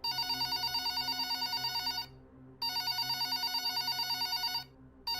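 Electronic telephone-style ring: a rapidly pulsing ring in bursts of about two seconds with half-second gaps, twice, then a third burst starting near the end.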